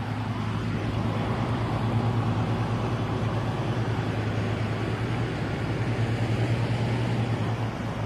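Fishing boat engine running steadily as the boat passes, a deep even hum with a fine rapid pulse over a wash of noise.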